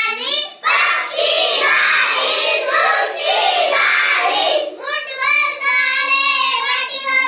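A group of children singing together. The middle few seconds turn into a rougher, noisier stretch of voices before the held, sung notes return.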